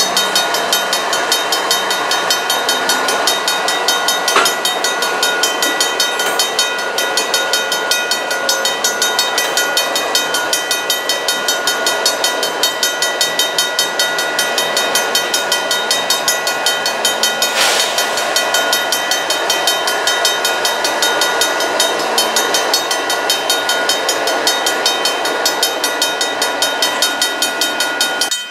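Railroad grade-crossing bell ringing in a rapid, even rhythm while a CSX freight train's diesel locomotives and cars roll past close by. The bell keeps ringing after the train has cleared, and there is a brief burst of noise about 18 seconds in.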